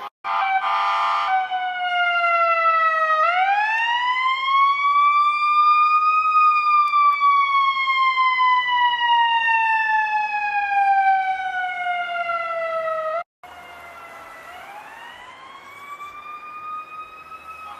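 Electronic siren sounding a slow wail. It opens with a brief buzzy horn blast, then the tone dips, climbs for about three seconds and slides slowly down for about seven. It cuts off, then returns quieter and rises again near the end.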